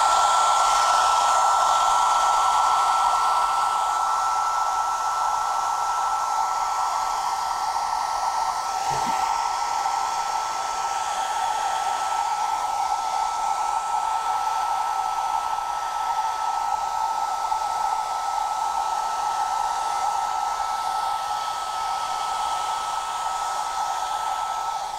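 Handheld hair dryer running steadily, blowing hot air onto a sheet of paper: a steady motor whine holding one pitch over the rush of air, easing slightly in level over the first few seconds.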